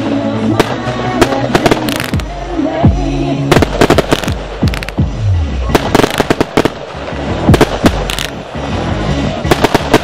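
Zena 'Shining Stars' firework firing shot after shot: sharp bangs and cracks of bursting shells at an uneven pace, sometimes several in quick succession, with a pop song with vocals playing underneath.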